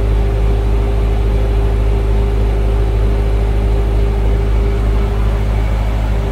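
TSUZUMI TDG 50 kVA silent diesel generator running steadily inside its sound-proofed canopy, its 4108D four-cylinder water-cooled engine giving a steady low drone with a steady higher hum over it. It gets slightly quieter near the end.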